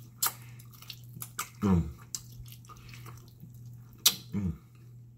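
Close-up wet eating sounds from pig feet being chewed and sucked off the bone: scattered sharp lip-smacking clicks, with two short low murmurs, one about one and a half seconds in and one near the end.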